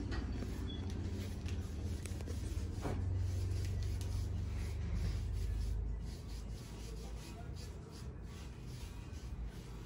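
Paint brush and sponge rubbing and dabbing on hollow plastic pumpkins, with light scratchy strokes and a few soft clicks. A low rumble runs underneath and weakens about six seconds in.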